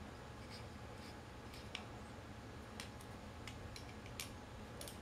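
Faint, scattered clicks and taps of small metal parts being handled as a wheelchair caster's wheel and axle bolt are fitted back together, about half a dozen of them, mostly in the second half, over a steady low hum.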